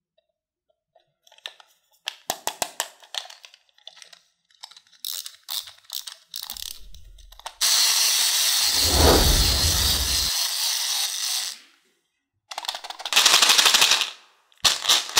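Small hard candy-coated chocolates clicking and rattling against a plastic toy case as it is handled and opened. Through the middle comes one long dense rattle of the candies pouring out onto hard plastic, and near the end there are short bursts of rapid clicking.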